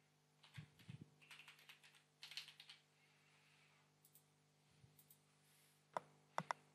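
Typing on a computer keyboard: a quick run of keystrokes in the first three seconds, a few light taps later, then three sharper clicks near the end.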